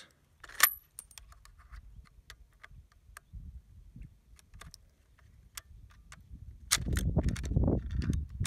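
Loading a bolt-action Mauser-pattern rifle from a stripper clip of 8mm Mauser cartridges. A sharp metallic click about half a second in is the clip seating in the receiver, followed by small scattered clicks as the rounds are pressed down into the magazine. Near the end a louder low rumble with handling clicks comes in as the action is closed and the rifle shouldered.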